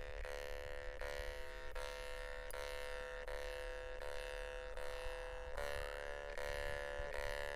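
Two jaw harps (vargans) tuned to D at A=432 play together as a steady drone, re-plucked about every three-quarters of a second. The players shift the bright overtones by shaping vowels with their mouths, and one overtone sweeps upward about six seconds in.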